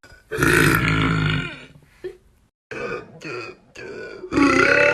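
Loud, low burps from young women: one lasting about a second near the start, a few short sounds after a brief cut to silence, and a second long burp beginning near the end.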